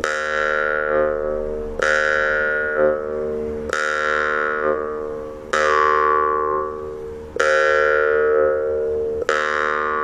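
Jaw harp plucked slowly, six plucks about two seconds apart. Each pluck rings on as a buzzing drone whose overtones shift in pitch, then fades before the next pluck.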